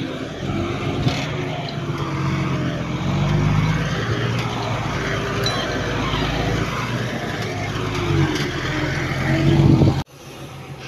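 Heavy diesel earthmoving machinery working, its engine running loudly with the pitch rising and falling under load. The sound drops off suddenly near the end.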